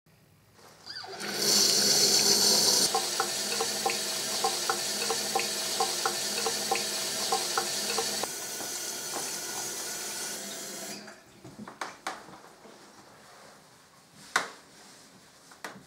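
Bathroom tap running water into a sink, a steady rush with a quick, regular plinking over it for several seconds. The water cuts off about eleven seconds in, and a few knocks follow, one louder thump near the end.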